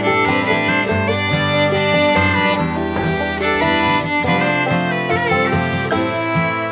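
Background music: fiddle with guitar in a bluegrass or country style, playing a busy melody.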